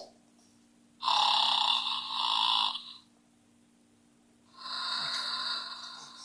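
Two long snores from the snoring horse, each lasting about two seconds with a pause between, the second softer than the first.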